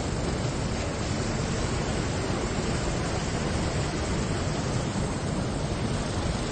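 Steady rushing noise of floodwater pouring through a breached dam, with no break or change.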